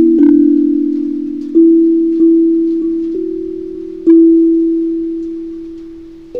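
15-note steel tongue drum struck with mallets, playing a slow melody of single ringing notes: about half a dozen strikes in the first four seconds, then one note left to ring and fade for about two seconds.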